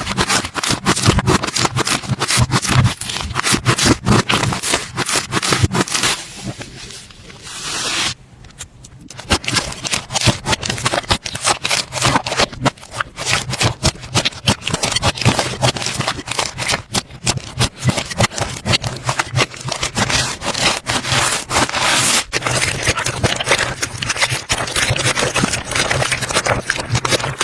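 Slime being squished and worked, a dense irregular run of crackling, popping clicks, easing off briefly about six seconds in before picking up again. A faint low hum runs underneath.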